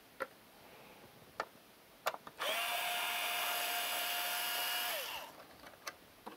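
A battery-powered screwdriver's motor runs for about two and a half seconds, driving out a board-mounting screw. It winds up, holds a steady whine, then winds down. A few light clicks of the tool being set on the screw come before it.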